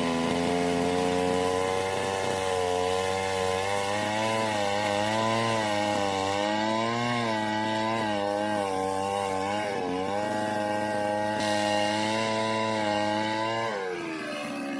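Chainsaw running and cutting wood, its engine pitch wavering up and down as the chain bites under load, then falling near the end as the engine eases off.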